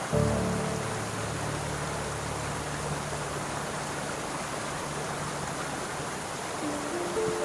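Steady rushing of a stream or waterfall, with soft music over it: a low piano chord struck at the start rings and fades over several seconds, and a few higher notes come in near the end.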